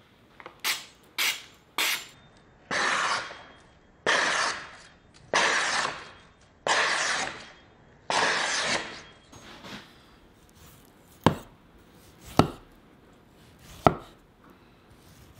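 A freshly sharpened kitchen knife slicing through sheets of paper, five rasping cuts of about a second each, then slicing a tomato, the blade knocking sharply on the cutting board three times. Three short clicks come just before the paper cuts.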